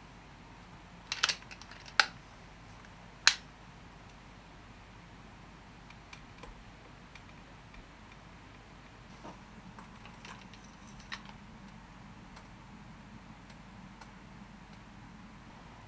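Sharp clicks and taps from handling a night-hunting air rifle's gear, with the scope, lamp and head-torch being worked by hand. A small cluster of clicks comes about a second in and two louder single clicks follow about a second apart, then a few fainter taps, over a faint steady hiss.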